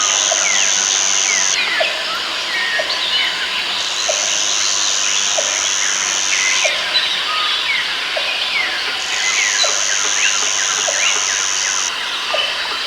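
Rainforest ambience: many birds chirping and whistling over one another, with a high, steady insect buzz that runs for about three seconds at a time. The buzz stops just after the start, then comes back about four seconds in and again about nine seconds in.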